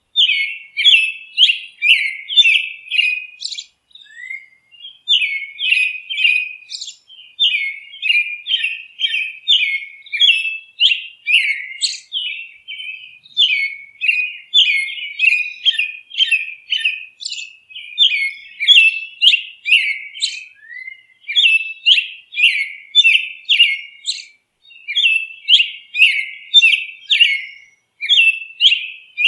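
Songbird chirping in quick runs of short, high chirps, each dropping slightly in pitch, broken by brief pauses every few seconds. The recording is clean, with no background noise beneath the calls.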